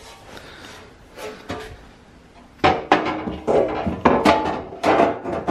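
Knocking and clattering of car body parts being handled at the stripped rear of a Tesla Model S. It is quiet for the first two and a half seconds, then comes a quick run of sharp knocks, some with a short metallic ring.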